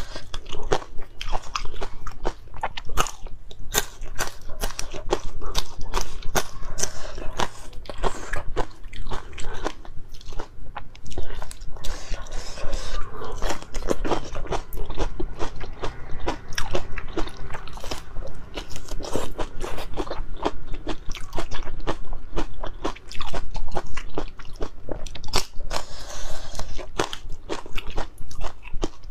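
Close-miked biting, crunching and chewing of chili peppers, with many irregular crisp crunches and wet mouth sounds picked up by a clip-on lapel microphone.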